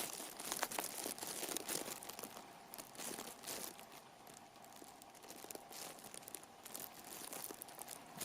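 Rustling and crinkling with many small clicks as things are handled on the work bench, loudest at the start and dying down after a few seconds.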